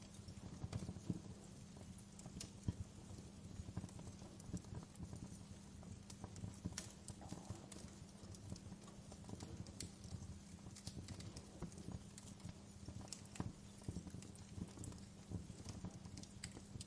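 Wood fire in a fireplace crackling, with irregular sharp pops and snaps from the burning logs and embers over a low steady rumble.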